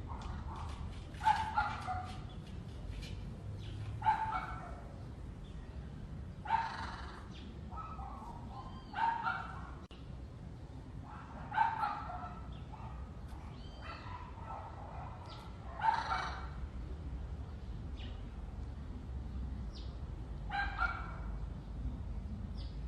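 An animal calling in short, pitched calls that repeat every two to four seconds, over a steady low hum.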